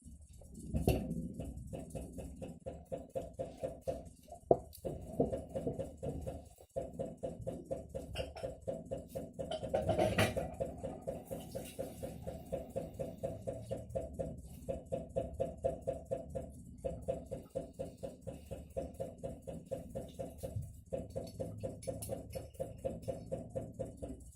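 Atlant refrigerator knocking in a rapid, steady rhythm of about three knocks a second. This is a fault that keeps going even with the fridge on a voltage stabiliser.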